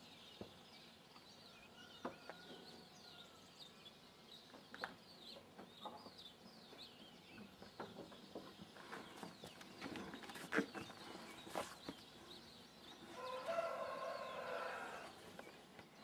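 Faint dawn chorus of small birds chirping throughout, with a few sharp clicks. Near the end a domestic chicken calls once, a pitched call lasting about two seconds and the loudest sound here.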